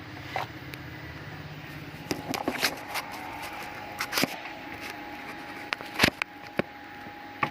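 Scattered clicks and taps of a smartphone and its parts being handled, with a faint steady whine starting about two seconds in.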